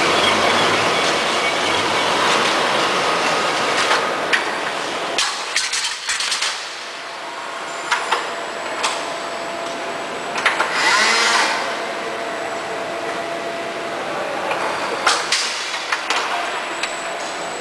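Sheet-bundle packaging line running: chain conveyor and machinery give a steady noise, broken by scattered clanks and clicks and a brief whine about eleven seconds in.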